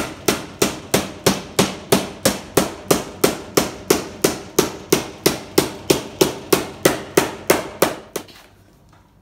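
Hand hammer striking the edge of a sheet-metal quarter panel clamped to a wooden buck, in an even run of blows about three a second, gradually folding the flange over. The hammering stops about eight seconds in.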